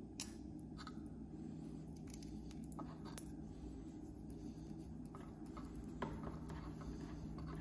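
Faint handling sounds: a few small clicks and rubbing as fingers screw the small protective ring onto the threaded camera tip of an endoscope's cable. A steady low hum sits under it.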